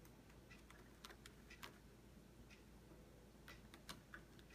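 Faint, irregular clicks and scratches of a cat's claws snagging and tugging at frayed sisal rope on a scratching post.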